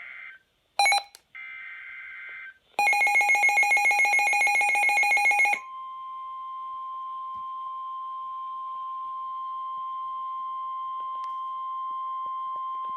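NOAA Weather Radio alert sequence. It opens with the screechy SAME digital header bursts and a sharp blip. Then comes about three seconds of a loud, rapidly pulsing electronic alarm beep. After that the steady 1050 Hz warning alarm tone holds for about eight seconds, the signal that a warning message follows.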